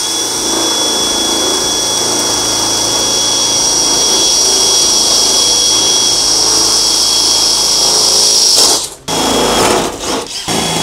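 Cordless drill with a half-inch bit boring through a composite van partition, running at a steady high whine for about eight seconds. It stops suddenly, then runs again in shorter, uneven bursts as the next hole starts.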